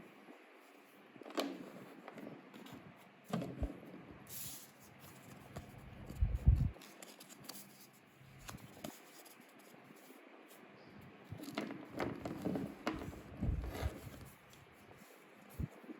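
Packaging being handled and opened by hand: intermittent rustling, scraping and tearing with small knocks. There is one louder low thump about six and a half seconds in, and a busier spell of handling near the end.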